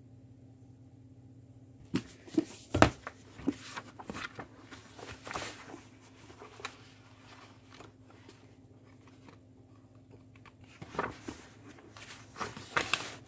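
Scattered knocks, clicks and rustles of objects being handled, in clusters about two seconds in, around five seconds and again near the end, over a faint steady hum.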